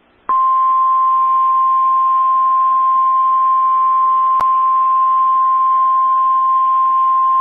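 NOAA Weather Radio warning alarm tone: a single steady beep that starts a moment in and holds, over faint radio hiss, with a sharp click about four seconds in. It announces that a severe thunderstorm warning is about to be read.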